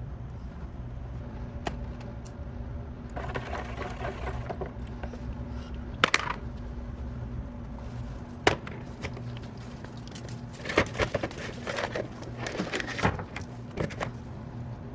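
Loose metal hardware clinking and rattling as it is handled, over a steady low hum. Two sharp metal clacks stand out about six and eight and a half seconds in.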